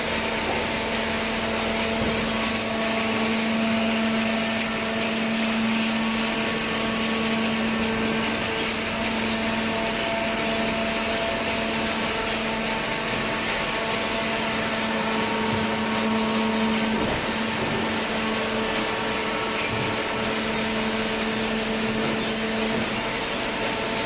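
Automatic horizontal hydraulic carton baler running: a steady machine hum with several held tones over a constant rushing noise.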